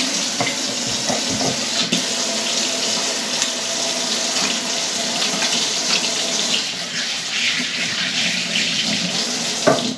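Kitchen tap running steadily into a sink as hands are washed under it, then shut off abruptly near the end with a knock.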